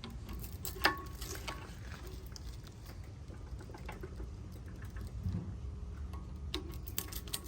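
Scattered light clicks and clinks of cut copper winding pieces being pried out of a ceiling fan motor's stator, over a low steady rumble.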